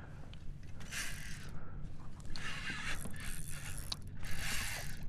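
Spinning reel working in about three short bursts while a hooked redfish is fought, its drag and gears giving and taking line, over a steady low rumble.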